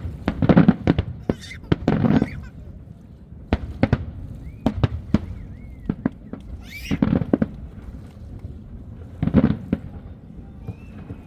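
Fireworks going off in a display: clusters of sharp bangs and crackles, bursting about every one to two seconds.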